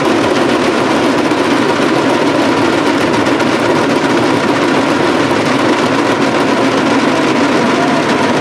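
Dense crowd din, many voices blending into a loud, steady roar.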